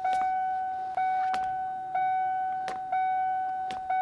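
A repeating electronic beep, one steady tone about once a second, each starting loud and fading until the next, with a few sharp clicks scattered through it.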